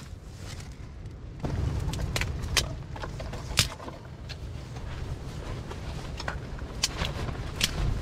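Small kindling fire just catching, crackling with a handful of sharp pops and snaps, over a low rumble that starts a second or so in.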